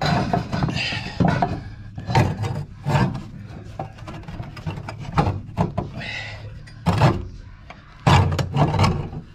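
Irregular knocks, clunks and scrapes of a cast-iron exhaust manifold being worked loose and manoeuvred out of a 7.3 IDI diesel's engine bay by hand, metal against metal.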